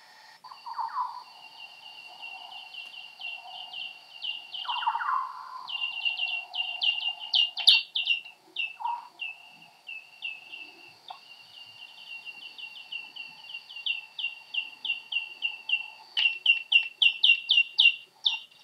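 Soprano pipistrelle echolocation calls recorded with an Echo Meter Touch 2 Pro bat detector and played back time-expanded to audible pitch: quick chirps, each sliding down into a short steady note, several a second in runs, densest and loudest near the end.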